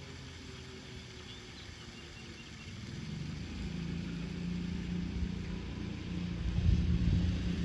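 An engine running with a steady low hum, getting louder as it draws near; the hum sets in about three and a half seconds in and is loudest near the end.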